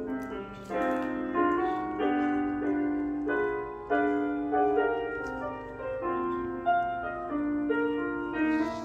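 Background piano music: a gentle melody of single notes changing about every half second.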